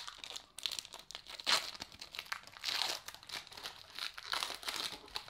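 Foil wrapper of a 1993 Pinnacle baseball card pack crinkling and tearing as it is pulled open by hand, in a run of irregular crackles.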